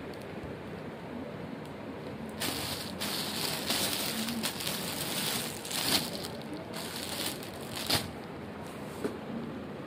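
Clear plastic shirt packaging crinkling and rustling as a hand sorts through the bagged shirts, from about two and a half seconds in until about eight seconds. There are sharper crackles near six and eight seconds, over a steady background hiss.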